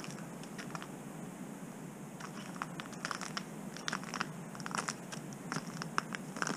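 Footsteps crunching in snow: an irregular series of crisp crunches underfoot.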